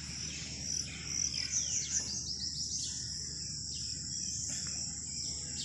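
Insects droning steadily in a high, unbroken band, with birds chirping over it, including a quick run of falling chirps about two seconds in.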